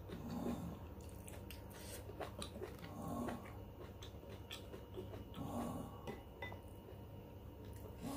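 Close-up eating sounds: soft chewing and four heavy breaths through the nose, about one every two and a half seconds, with small clicks of a metal spoon against a ceramic soup bowl.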